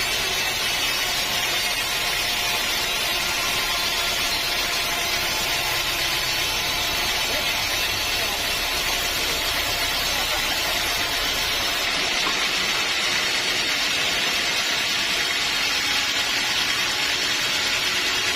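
Band sawmill running steadily, its blade sawing through a teak log with an even hiss and engine drone. The sound thins a little about two-thirds of the way through.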